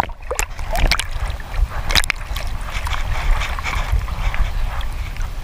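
Sea waves sloshing and splashing over a low-mounted camera as it dips under the surface and comes back out, with a steady low rumble and a few sharp knocks in the first two seconds, the strongest about two seconds in.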